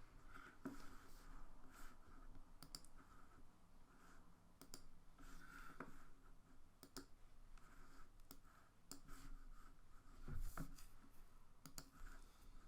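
Faint, irregular clicking of a computer mouse and keyboard being operated at a desk.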